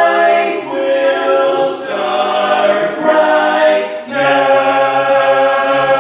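Barbershop quartet singing a cappella: four men's voices in close harmony, holding chords that change about every second. About four seconds in there is a short break, then a lower bass note joins the chord.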